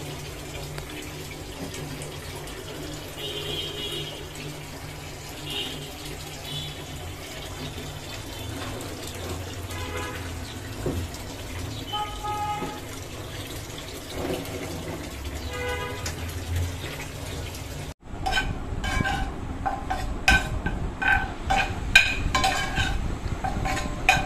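Wet sponge scrubbing a soapy stainless-steel gas stovetop: steady wet rubbing over a low hum. After a sudden cut about two-thirds through, a spatula stirring fried instant noodles in a nonstick pan, with irregular clicks and knocks.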